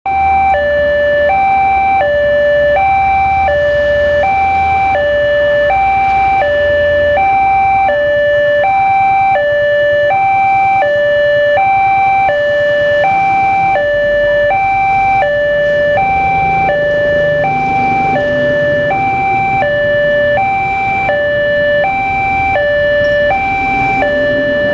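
Railway level-crossing warning alarm from the loudspeaker on the crossing signal pole: a loud electronic two-tone signal alternating steadily between a higher and a lower note, each held about three-quarters of a second, sounding while the barriers are down.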